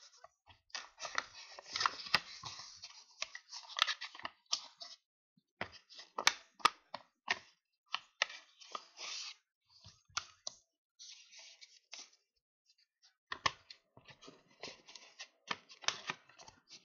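Paper envelope being folded and pressed by hand: rustling and crinkling in irregular bursts with sharp crackles and short pauses.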